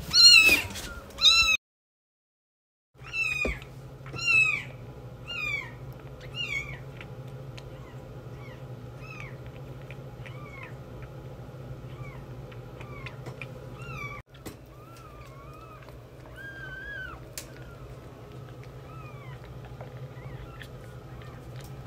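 Very young kittens mewing: loud, high, downward-sliding cries in quick succession at first, then after a short break a series of mews that grow fainter and sparser, with only occasional faint mews over a steady low hum later on.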